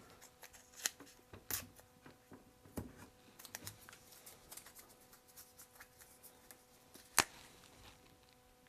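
Small scattered clicks and rustles of masking tape and a marker being handled while labels are stuck onto the joints of a wooden wheel, with one sharp click about seven seconds in.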